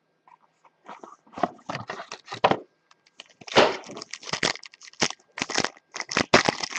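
A trading-card box and its pack wrapper being torn open and handled, a run of irregular crinkling, crackling and tearing noises that gets busier about halfway through.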